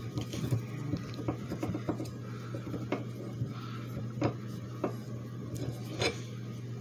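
Light scattered metal clicks and rubbing as a slide hammer's hub-puller flange adapter is turned by hand on its threaded shaft, spinning freely with the lock nut backed off, over a low steady hum.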